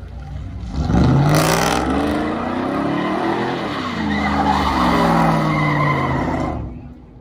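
Pickup truck doing donuts on wet pavement. Its engine revs up sharply about a second in and rises and falls at high revs over the noise of spinning, squealing tyres, then drops off suddenly near the end.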